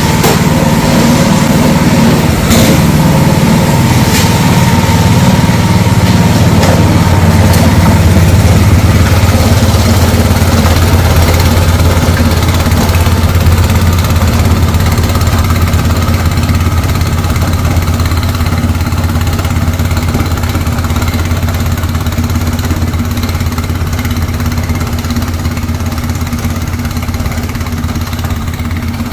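Snow blower's gasoline engine running steadily, gradually getting quieter in the second half, with a couple of brief knocks a few seconds in.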